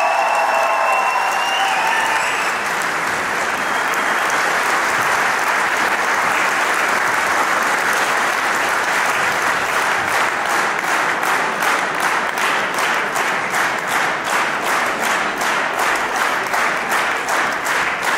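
Large seated audience applauding, then falling into rhythmic clapping in unison, about three claps a second, from about ten seconds in.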